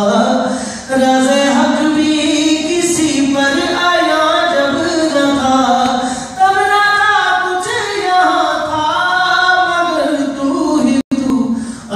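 A man singing unaccompanied into a microphone in qawwali style, with long held notes that slide and waver in pitch. The sound cuts out briefly about a second before the end.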